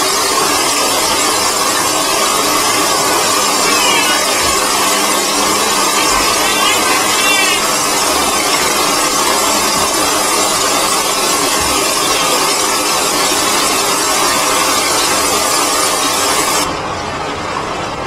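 Shower water running steadily and draining through a round metal floor drain: a loud, even hiss of falling and splashing water that cuts off suddenly near the end.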